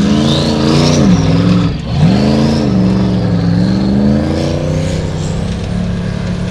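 Formula Offroad buggy's engine revving hard under load on a steep dirt climb. The revs dip sharply about two seconds in, then climb back and hold high, with a high whine rising and falling along with them.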